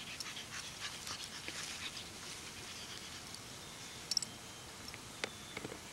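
A pug puppy and a Labrador retriever at play on grass: faint rustling and ticking, with a few short sharp sounds, the loudest about four seconds in and a click about a second later.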